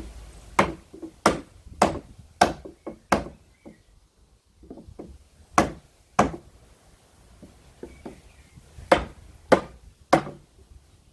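Hammer striking the wood of a pallet, knocking a board loose so its nails work out. It comes as groups of sharp blows: five strikes a little over half a second apart, a few lighter knocks, two more strikes, then three near the end.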